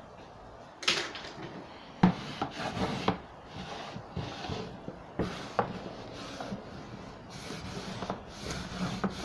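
Wallpaper being rubbed and pressed flat by hand onto a wooden bookcase back panel, with scraping swishes and several sharp knocks, the loudest about two seconds in.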